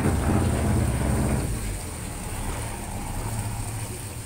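Fishing boat's engine running in reverse, a steady low throb, with water churning from the propeller wash. The engine eases down about a second and a half in.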